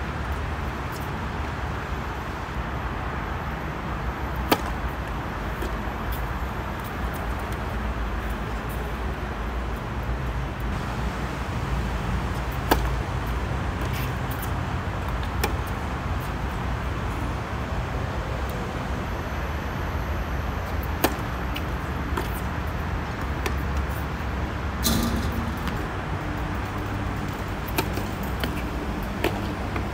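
Tennis balls struck by rackets: a sharp pop every few seconds over a steady low rumble of outdoor background noise.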